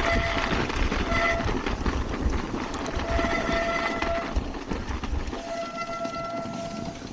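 Mountain bike brakes squealing in four separate applications, two short and two longer, each a steady high-pitched squeal, over the rumble and hiss of the descent.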